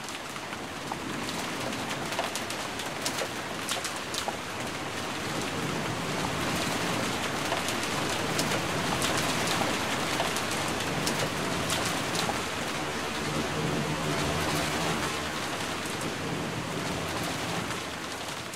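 Steady rain falling, with many sharp drop ticks over an even hiss. A low steady tone joins in over the last several seconds, and the rain fades out near the end.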